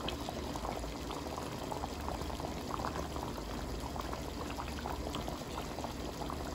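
Meatballs in a thin gravy bubbling in a large pot at a steady simmer, with many small pops of bursting bubbles.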